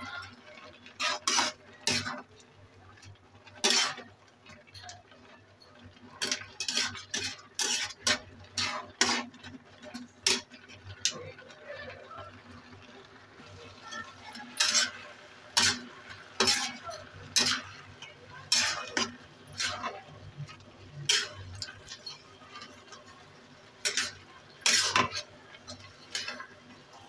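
A spatula scrapes and knocks against a metal pan as a thick mixture of grated carrot and bottle gourd in milk is stirred. The strokes come irregularly, sometimes several in quick succession, with a brief pause about halfway through.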